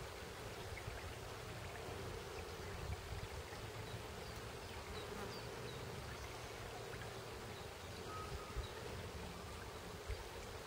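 Shallow stream flowing over stones with a steady low buzz beneath it and a few faint bird chirps. There are two soft low bumps near the end.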